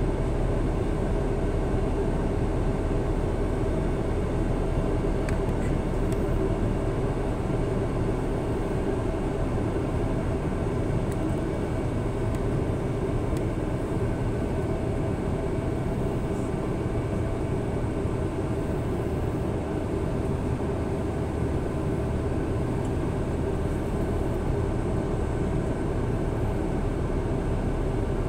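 Airbus A330-900neo's Rolls-Royce Trent 7000 turbofan engines running in flight, heard inside the cabin beside the wing. The engine noise is a steady, even sound with several steady tones held over it.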